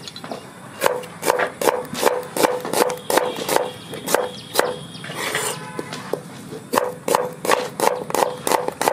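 Knife slicing an onion into thick pieces on a wooden chopping board: a steady run of knocks, about three a second, as each stroke cuts through and hits the board, with a short scrape about halfway through.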